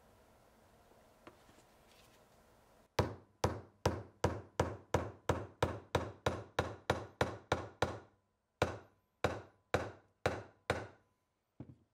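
Hammering: a fast run of sharp knocks, about three a second, starting about three seconds in. Then come five slower, spaced blows and two light taps near the end.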